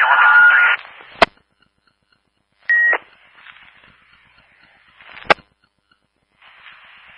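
Fire department two-way radio traffic heard through a scanner: a transmission cuts off, followed by a sharp click about a second in. A short beep with a burst of static comes near the three-second mark, then another click, and steady radio hiss near the end.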